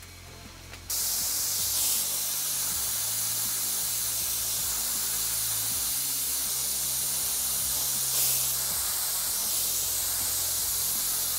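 Brazing torch flame hissing steadily as it heats a braze joint on a stainless steel tubing coil; the hiss starts abruptly about a second in.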